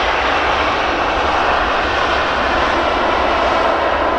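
Jet engines of a Boeing 737-800 airliner running, a loud, steady rush of engine noise.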